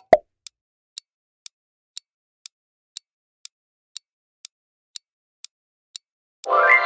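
Quiz countdown-timer sound effects: two quick pops at the start, then a clock ticking twice a second as the timer counts down, and a loud time's-up tone that sounds when it reaches zero and fades away.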